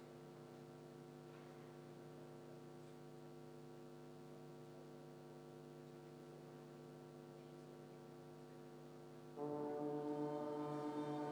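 Military brass band holding a soft, steady chord that swells suddenly louder and fuller about nine seconds in.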